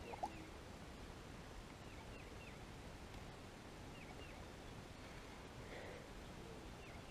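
A bird calling over and over, short sets of about three quick falling chirps every two seconds or so, against faint outdoor background. A single sharp click sounds just after the start.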